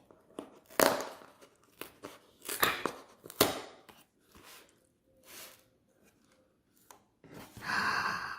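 Packaging of a French RCIR combat ration being torn and pulled open by hand, in a series of irregular rips and rustles with short pauses, the loudest about a second in and around three seconds in.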